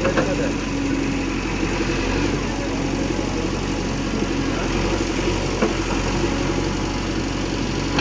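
JCB 3DX backhoe loader's diesel engine running steadily while its backhoe arm and bucket dig and lift soil.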